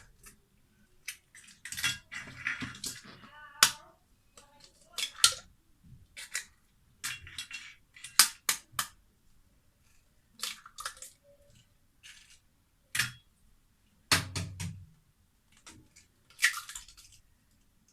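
Four eggs being cracked one after another into a blender jar: a series of sharp taps and clinks of shell against the jar, a second or two apart, with a duller knock about fourteen seconds in.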